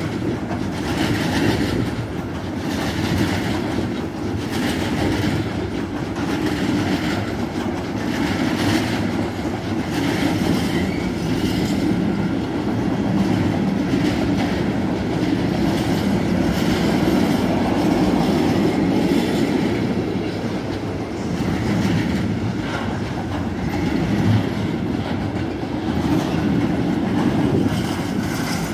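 Wagons of a long freight train rolling past: a steady rumble with a regular clickety-clack of wheelsets over rail joints, clearest in the first half.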